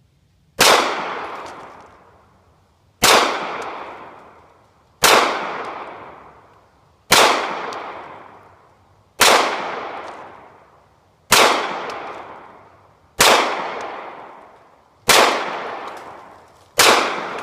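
Nine handgun shots fired one at a time, about two seconds apart, each sharp report followed by a long decaying echo. These are two-year-old rounds with weather-wetted primers, all firing normally.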